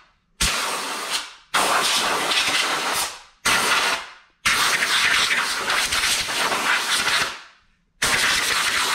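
Air blower blowing sanding dust off a sanded oak box and out of its open grain, in five hissing blasts that start suddenly, the fourth one about three seconds long.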